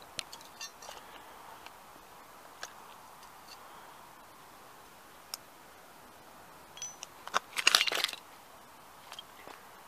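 Sneaker soles treading on the broken plastic pieces of a Ferrari model car on asphalt: scattered small clicks and snaps, then a short burst of loud crunching about three-quarters of the way through as the fragments are stamped and ground underfoot.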